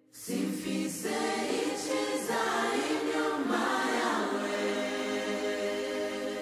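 Choir singing held chords, coming in suddenly just after the start and beginning to fade at the end.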